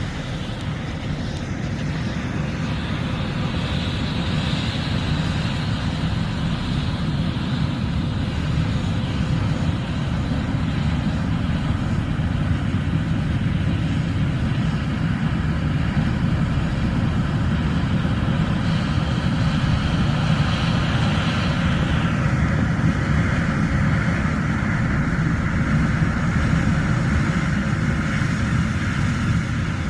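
John Deere S780 combine running steadily at work in a corn field, a continuous low mechanical rumble with a higher rushing layer that drops away about three quarters of the way through.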